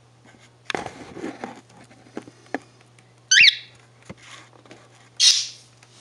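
Cockatiel calling: a short chirp that bends up and down about three seconds in, and a harsh squawk near the end. About a second in there is a brief scuffle close by, then a few light taps.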